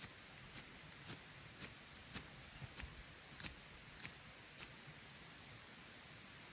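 Fire steel (ferro rod) being struck again and again with a scraper: short, sharp scrapes about two a second, some nine strikes that stop about four and a half seconds in.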